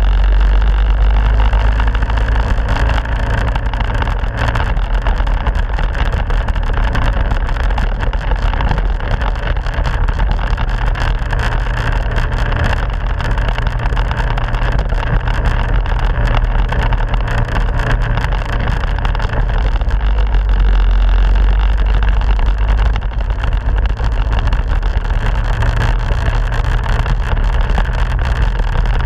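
Minibike's small engine running steadily under way, heard close from a camera strapped to the bike.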